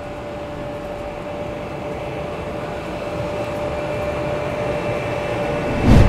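Steady mechanical hum of an industrial hall, with a constant mid-pitched tone, growing slowly louder. A brief loud burst comes near the end as a glitch-logo transition effect.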